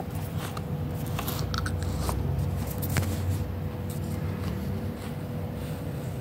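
A highlighter being drawn across notebook paper: a few small scratchy clicks over a low rumble of handling noise and a faint steady hum.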